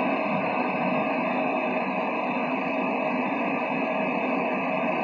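Loud, steady static-like hiss with faint steady tones running through it, unchanging throughout.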